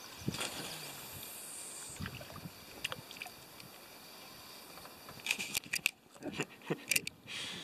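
Scattered clicks and knocks in a small fishing boat, over a steady hiss of wind and water, busiest in the last couple of seconds.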